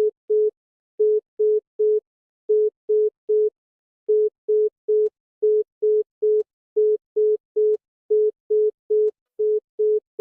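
Electronic alarm beeping: short beeps on one low, steady tone, about two and a half a second, mostly in groups of three with a brief pause between groups.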